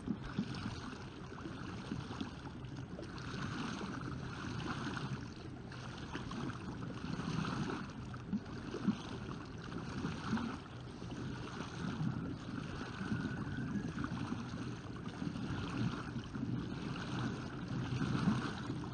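Paddle blades of a homemade pedal-driven kayak splashing through the water in a steady, repeating rhythm as the pedals turn, with wind buffeting the microphone.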